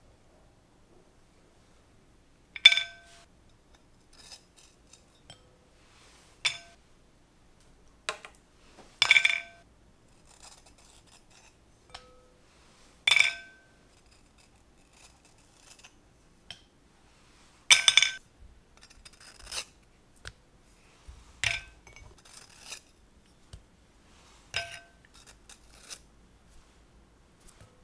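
Glass dishes clinking and ringing out, about nine sharp clinks a few seconds apart, as Oreo cookies are prised from their cream filling with a small knife over a glass plate and bowl. Fainter taps and scrapes fall between the clinks.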